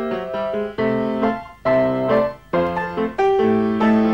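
Piano music: melody notes and chords struck one after another and left to ring out.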